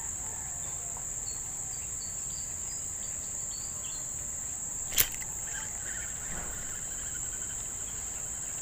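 Steady high-pitched chorus of insects, with one sharp click about five seconds in.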